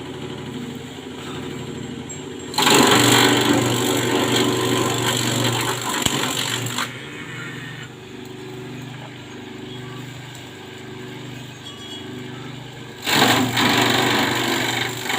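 Small engine-driven grass chopper running steadily. Grass is fed in and shredded for cattle feed, which is louder and noisier from about two and a half seconds in for roughly four seconds, and again near the end.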